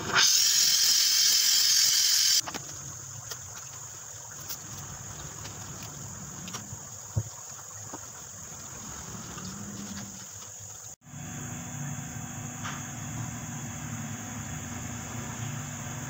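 Gas brazing torch flame hissing loudly, shut off after about two and a half seconds. After a break near eleven seconds, a low steady hum.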